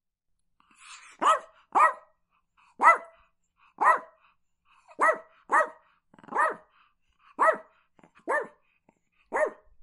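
Chihuahua barking: about ten short, sharp yaps beginning about a second in, roughly one a second, some in quick pairs.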